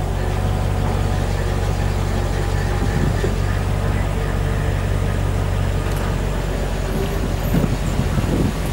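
Mercedes SL55 AMG's supercharged V8 idling steadily while the electro-hydraulic folding hardtop starts to open, with a faint whine and a few clicks from the roof mechanism in the second half.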